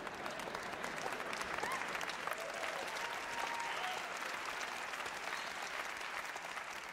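Theatre audience applauding after a joke, dying away near the end.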